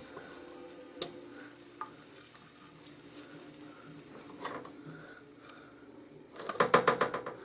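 Utensil scraping and clicking against a baking tray as baked chicken tenders and potato wedges are lifted off it: a single click about a second in, then a quick run of rapid scrapes near the end.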